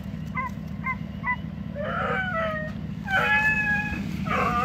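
Hound puppy whining: three short high yelps, then three longer drawn-out whines that slide down in pitch, over a steady low hum.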